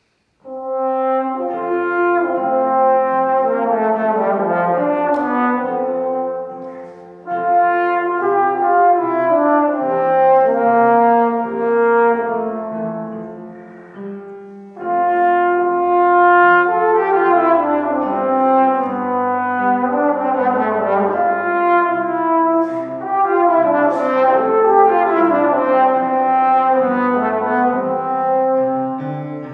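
Slide trombone playing a slow classical melody with piano accompaniment, starting about half a second in and moving in phrases with two short breaks.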